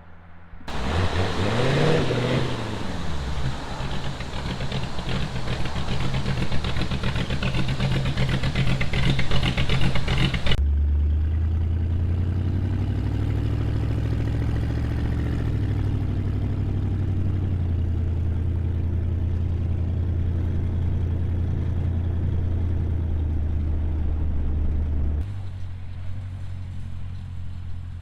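Hot rod engines in a run of separate passing clips: first an engine revs up and runs loud with heavy exhaust and wind hiss, then a cut about ten seconds in to a deeper, steady low rumble, with another cut near the end to a quieter engine.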